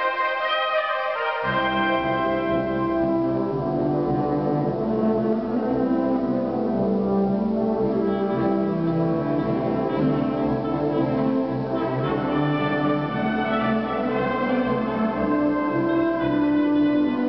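A wind band playing a piece together: clarinets, saxophones and brass, tubas included, in sustained chords. The low bass register comes in about a second and a half in.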